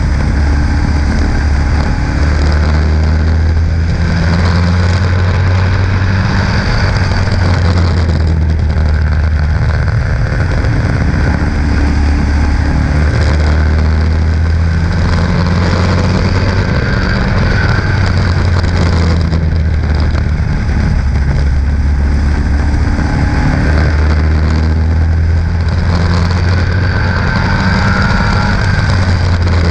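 Stock car's engine running hard at race speed, heard from an onboard camera on the car. The engine note dips and rises again every few seconds through the laps.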